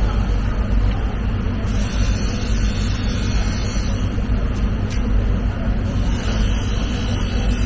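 Steady low machinery rumble with a constant low hum, like an engine running, and a faint click about five seconds in.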